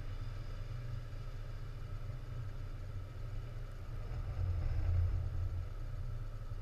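Steady low engine drone, swelling slightly about five seconds in.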